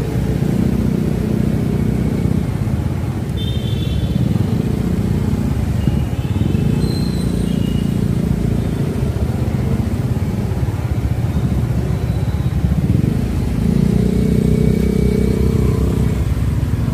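Motorcycle engine running at low speed in slow city traffic, its note swelling three times, with the general noise of surrounding traffic. A few short high-pitched tones sound briefly near the start.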